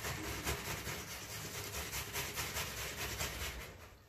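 Ripe tomato grated on a stainless steel box grater: a steady rhythm of wet rasping strokes, about three a second, fading out near the end.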